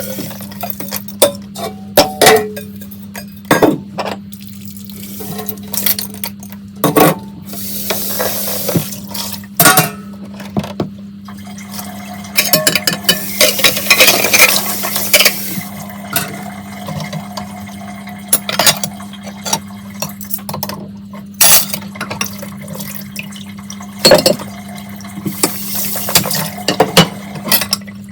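Dishes being hand-washed in a kitchen sink: plates, glasses and cutlery clinking and knocking against each other, with water running and splashing in stretches. A steady low hum sits underneath.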